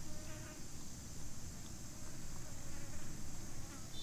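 A steady, high-pitched insect chorus, with a low rumble underneath and a few faint short chirps.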